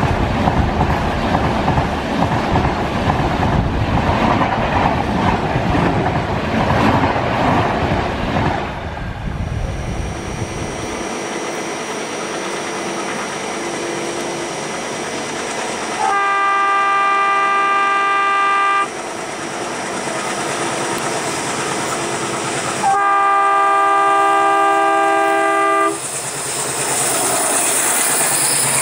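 A train rushing past close by, wheels clattering, for the first nine seconds or so; then a WDM-3A diesel locomotive sounds two long chord horn blasts of several tones, each about three seconds, over the steady running noise of the train. Near the end a train rushes past close by again.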